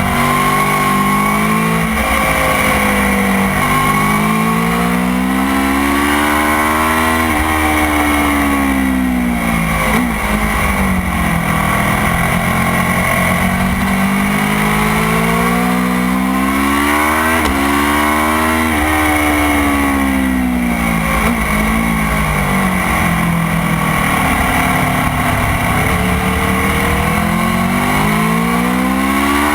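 Motorcycle engine at racing speed, its pitch climbing and falling several times as it is revved out and shifted through the gears, with sudden drops in pitch at the shifts.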